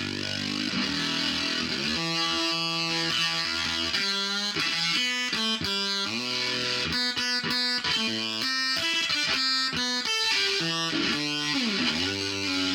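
Electric guitar played through a Behringer octave divider and fuzz pedals, giving a distorted tone: single-note lines with notes sliding in pitch near the start and near the end, and a quick run of short notes in the middle.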